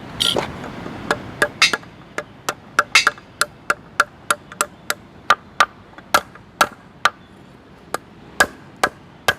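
Hand hammer striking a hot mild-steel rebar blank on an anvil, a steady run of sharp blows about three a second, each with a short metallic ring. The blows knock in the cut that forms the knife's heel.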